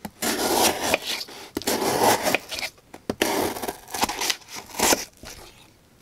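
Ka-Bar TDI framelock folding knife slicing through corrugated cardboard in about four separate cutting strokes, each a scraping rasp of the blade through the board, stopping shortly before the end.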